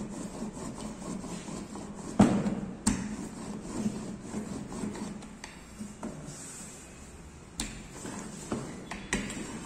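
Rolling pin rolling out dough on a stainless-steel table: a steady rubbing, with a few sharp knocks, the loudest about two seconds in.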